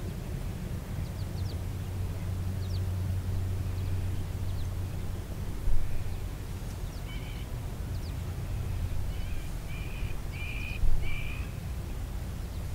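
A bird, crow-like, gives a run of five short harsh caws in the second half, with faint chirps from other birds before it. Under it runs a low steady rumble, with two brief thumps.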